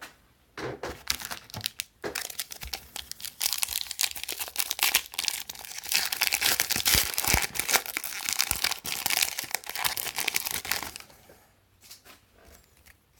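Trading card pack wrapper being crinkled and torn open by hand, a dense crackling rustle that fades out about two seconds before the end.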